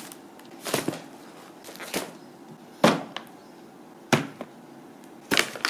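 Parcels and shopping bags being set down on a glass tabletop: five short, sharp knocks, about one every second.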